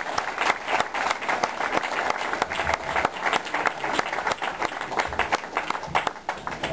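Audience applause: many hands clapping in a dense, irregular patter.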